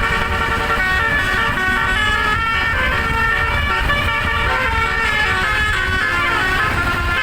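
A bus's 'telolet' musical air horn, a multi-trumpet horn driven by a melody module, playing a tune without a break, its notes stepping up and down every fraction of a second. A low rumble runs underneath.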